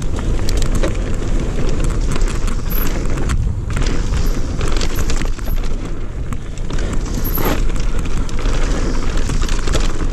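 Wind buffeting the microphone over the rattle of an electric mountain bike riding fast down a rough forest dirt trail, with many short knocks and clicks as the bike hits bumps.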